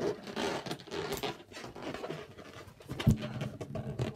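Breathy puffs of air as a green latex balloon is blown up, then, about three seconds in, a sudden rubbery squeak held for about a second as the balloon's stretched neck is pulled to tie it.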